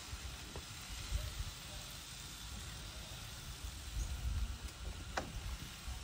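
Quiet outdoor background: uneven low rumbling on the microphone over a faint hiss, with one short, sharp chirp about five seconds in.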